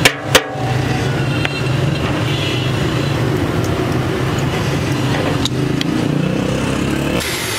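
An engine running steadily at idle, a low even hum, with two sharp knocks right at the start.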